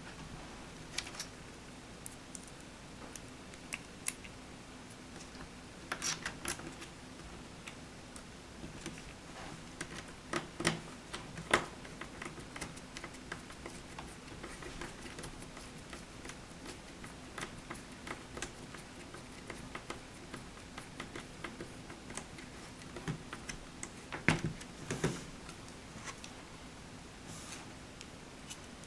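Scattered small clicks and taps of plastic laptop screen parts being handled and fitted, in irregular clusters, over a faint steady hum.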